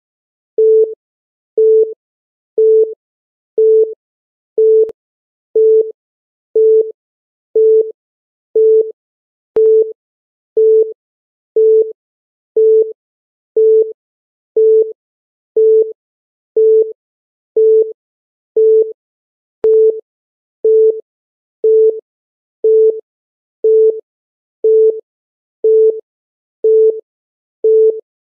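Electronic timer beep: one short, steady mid-pitched tone repeating evenly once a second, marking each second of a countdown timer.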